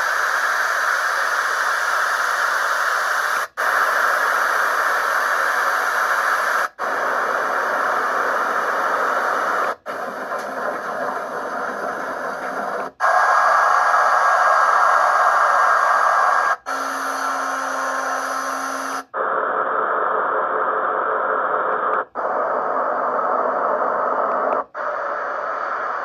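Famisym white noise sound machine playing its built-in noise sounds through its small speaker, skipping to a new sound about every three seconds. Each sound is a steady hiss of a slightly different tone, one with a low steady hum, and there is a brief drop-out at every change.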